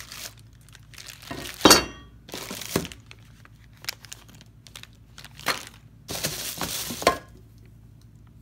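Parts in plastic bags being handled and set down on a wooden workbench: bags crinkling, with several sharp clinks and knocks of hard parts. The loudest, about two seconds in, rings briefly like metal.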